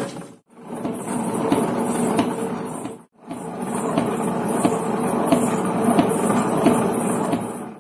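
Tabletop wet grinder running, its stone rollers turning in the rotating drum as they grind soaked vada paruppu and urad dal into batter: a steady mechanical hum with faint regular ticks. The sound cuts out briefly twice.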